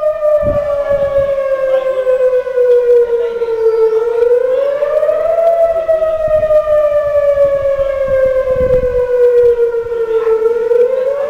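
Campus outdoor emergency warning siren wailing. Its pitch rises quickly, then falls slowly over several seconds, and the cycle starts again about halfway through and near the end.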